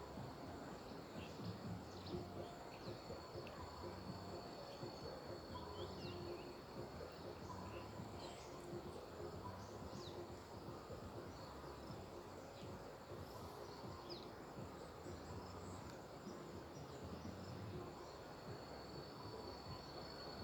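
Faint, steady high-pitched drone of insects such as crickets, with scattered short chirps over a low background hiss.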